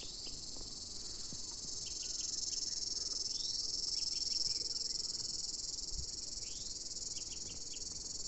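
A steady, high-pitched insect chorus, typical of crickets, with short chirping notes in groups of three or four and a couple of brief rising calls over it.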